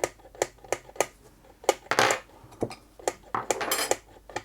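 A quick series of sharp metallic clicks and clinks, about three a second, with a short scraping rattle about two seconds in and a longer one near the end: small metal tools and parts being handled on a Singer Featherweight 221K sewing machine's mechanism.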